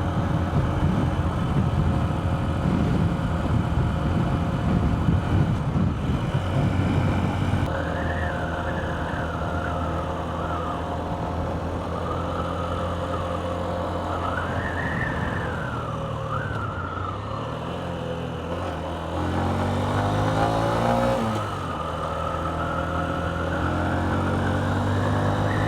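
Honda CB125F's single-cylinder four-stroke engine running steadily at road speed, with wind buffeting the microphone heavily for the first several seconds. From about a third of the way in, a wavering wind whistle rises and falls over the engine. About two thirds of the way through, the engine note drops and then climbs again.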